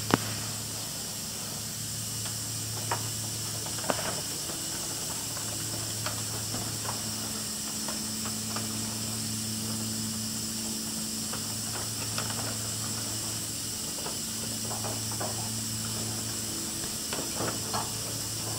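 Steady hiss and low hum of machinery running, with scattered light crinkling clicks as insulated flexible duct and plastic are handled.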